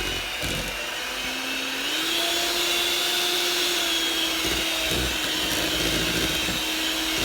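Electric mixer running steadily, beating eggs into creamed butter and brown sugar for cake batter. Its motor note steps up in pitch about two seconds in.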